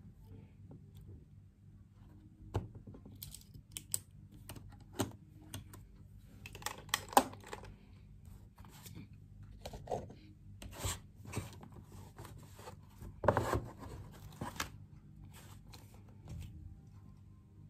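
Paper and a spiral-bound notebook handled on a desk: scattered rustles, scratches and light knocks, with a longer rustle about thirteen seconds in.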